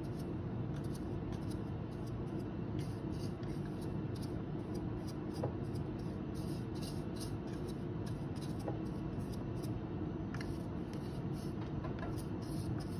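Light scraping and scattered faint taps as ground dried jalapeño powder is knocked and scraped out of the stainless-steel bowl of an electric spice grinder, over a steady low background hum.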